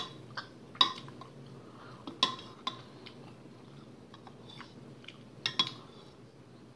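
A metal spoon clinking against a soup bowl while scooping soup: a handful of sharp, separate clinks, two of them close together a little past the middle.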